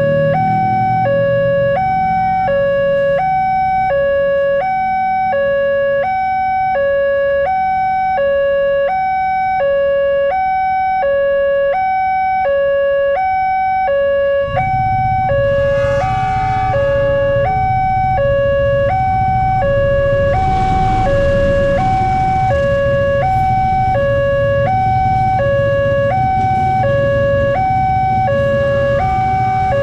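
Railway level-crossing alarm: an electronic two-tone siren switching back and forth between a lower and a higher note, each held about half a second, repeating steadily. About halfway through, a low rumble joins it, and a few seconds later a broad rushing noise, as a train comes through the crossing.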